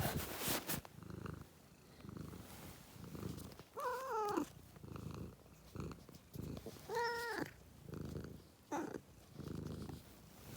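Domestic cat purring, a low pulsing rumble, with two short meows about four and seven seconds in and a briefer call near nine seconds. A short rustle sounds at the very start.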